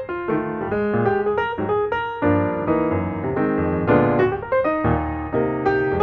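Background piano music: notes and chords struck at a steady pace.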